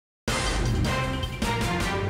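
Television news theme music starting abruptly about a quarter second in: a loud opening sting with heavy bass, and a second hit about a second and a half in.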